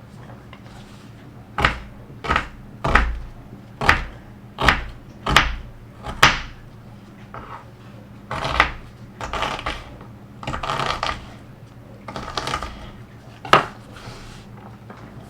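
Kitchen prep sounds: about nine sharp, irregular knocks of utensils on a hard surface, like a knife or tools on a board or countertop, with brief scraping or rustling in between.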